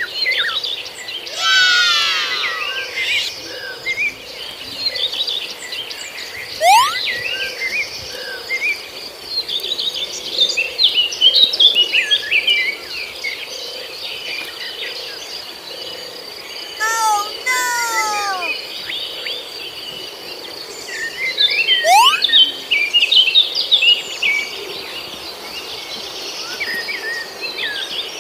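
Baby chicks peeping, many short, high, mostly falling chirps overlapping continuously, with a few louder calls near the start and about two-thirds through. A steady high-pitched whine runs underneath.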